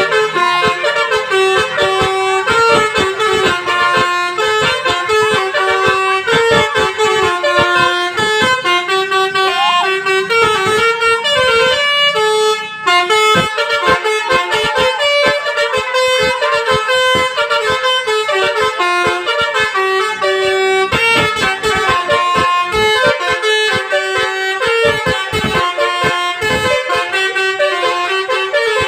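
Telolet basuri musical air horn on a tour bus playing a fast melody, its horns sounding note after note in quick succession with short clicks between notes. It breaks off briefly about twelve seconds in, then plays on.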